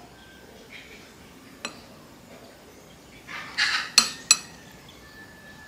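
Metal fork on a ceramic plate: a single tap, then a short scrape across the plate and two sharp, ringing clinks in quick succession about four seconds in.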